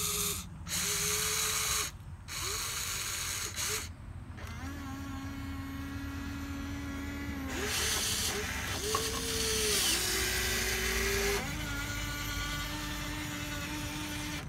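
Wltoys 16800 RC excavator's small electric motors whining as it works its boom, arm and bucket and swings its upper body. The whine shifts in pitch with each movement and cuts out briefly a few times in the first four seconds.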